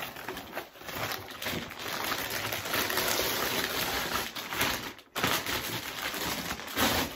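Clear plastic bag rustling and crinkling as it is pulled off a boxed speaker: a dense, irregular crackle that stops for a moment about five seconds in.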